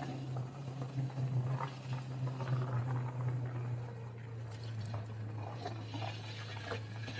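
Motorcycle engine running steadily while riding, a constant low hum that eases slightly in pitch about halfway through, over road and wind noise.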